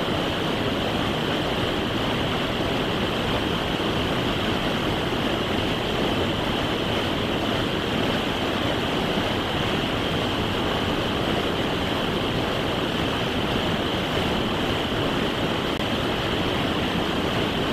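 Rapids of a fast creek rushing steadily over boulders: a constant, even wash of white water.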